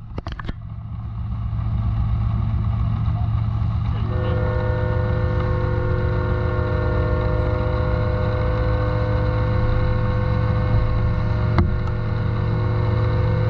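Motor vehicle engine idling with a steady low hum. About four seconds in, a steady whine of several notes joins it and holds. There is a single sharp click near the end.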